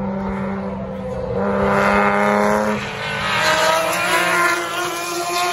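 Historic 1970s–80s touring race cars passing at speed, their engines running at high revs. The sound swells loudest about two seconds in and again around four seconds in as one car after another goes by.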